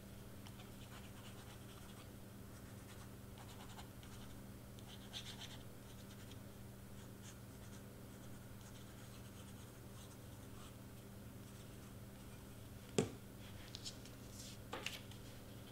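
Quiet handling of layered cardstock: faint scratching and rustling of paper being set down and pressed, with one sharp tap near the end followed by a few light ticks, over a steady low hum.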